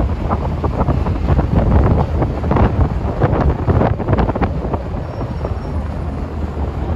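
Strong wind gusting over the microphone on a ferry deck, over the steady low rumble of the ship.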